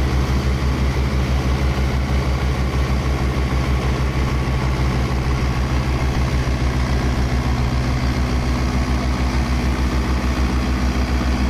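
Diesel engine of a Mahindra Arjun Novo 655 DI 4WD tractor running steadily with an even, deep throb while the tractor is bogged in wet mud with its trolley.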